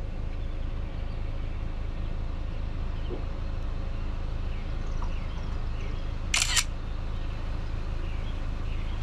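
A smartphone camera shutter sounding once, about six seconds in, as a delivery photo is taken, over a steady low background rumble.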